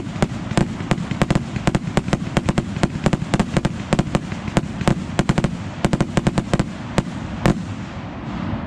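Aerial fireworks launching and bursting in quick succession, several sharp bangs a second over a steady rumble. The bangs stop with a last loud one about a second before the end.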